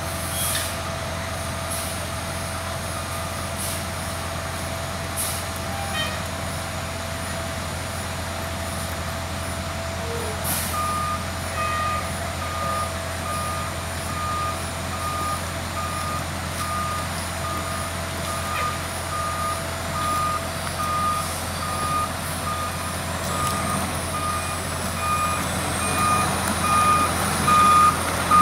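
A fire ladder truck's back-up alarm beeping steadily about once a second over its diesel engine running as it reverses. The beeps are faint at first, come through clearly from about a third of the way in, and grow louder near the end as the truck comes closer.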